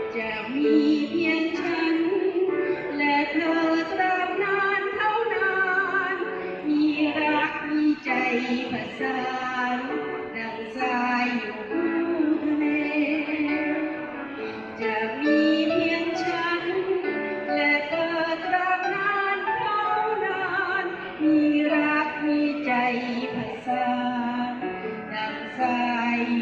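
Music: a slow song with a high melody line that sounds like a woman singing over the accompaniment.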